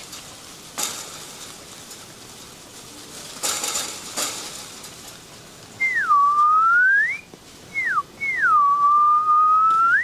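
A person whistling: a long whistle that dips and slowly climbs back up about six seconds in, then a short falling one and a long low, nearly level whistle that sweeps up at the end. A few soft rustles come before.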